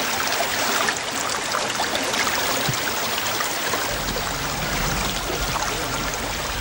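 Small brook running and splashing over stones in a narrow channel, a steady babble. About four seconds in, a low rumble joins it.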